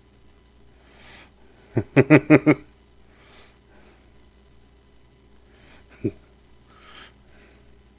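A man's short chuckle, about five quick pitched bursts of laughter around two seconds in and one more brief burst near six seconds, with soft breathing through the nose between them.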